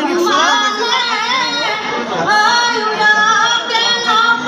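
Women singing an Assamese Bihu song, in high held notes with wavering ornaments and slides.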